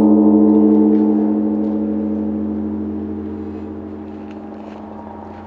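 Zojoji's giant bronze Japanese temple bell (bonshō) ringing on after a single strike: a deep, steady hum of several tones with a slight wavering, fading slowly and evenly.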